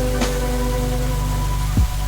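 Background music from a pop song, a gap between sung lines: held chords over a steady bass, with a sharp drum hit just after the start and a deep falling drum hit near the end.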